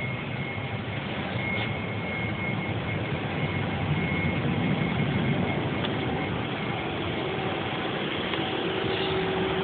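Steady hum of air and machinery inside a parked Boeing 757-200's cabin, the cabin ventilation running. A faint high whine comes and goes, and a lower steady tone joins near the end.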